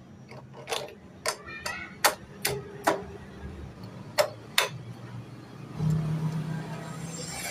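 A series of about eight sharp knocks, irregularly spaced over the first four and a half seconds, followed near the end by a low steady hum.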